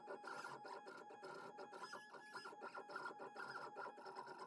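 Shapeoko XXL CNC's stepper motors driving the gantry as it draws with a pen. They make a faint printer-like whine in steady tones that stop and start with many short clicks as each short stroke changes direction.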